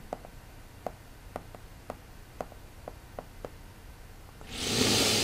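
Hard plastic tip of a Logitech Crayon stylus tapping and ticking faintly on the iPad's glass screen while handwriting, about a dozen light, irregular clicks. Near the end a short, louder breathy rush.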